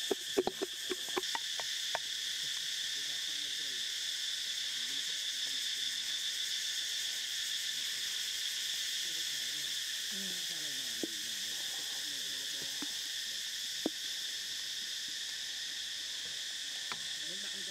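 Steady chorus of insects in several high bands, with a quick run of small clicks in the first two seconds and a single sharp click about fourteen seconds in.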